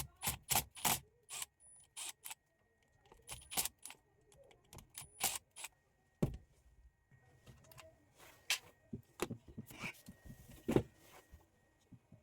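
Irregular sharp clicks and light clatter of hand tools and small parts being handled, some in quick clusters and others spaced out.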